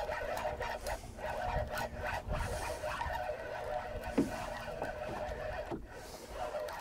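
Spinning reel being cranked steadily as a hooked fish is reeled up to the boat, a continuous whir with wind and water rumble underneath and a couple of light knocks.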